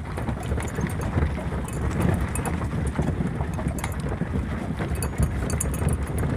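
Vehicle driving slowly over a rough dirt road, heard from inside the cabin: a steady low rumble of engine and tyres, with scattered small rattles and knocks.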